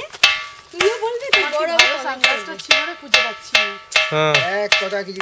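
Khanderi Island's ringing rock, a boulder struck repeatedly in a quick run of knocks, about two to three a second, each giving a ringing metallic tone like a bell.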